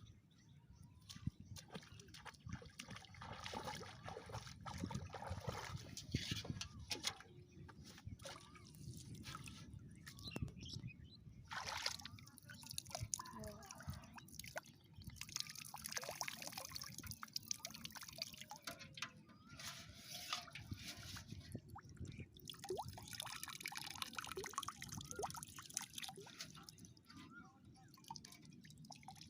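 Water splashing and dripping in many small, irregular splashes and trickles.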